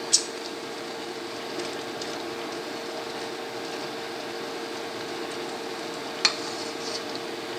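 Pot of noodle soup with cabbage simmering, a steady bubbling hiss over a steady hum, as a spoon stirs it. Two sharp clinks, just after the start and again about six seconds in, as the spoon knocks the aluminium pot.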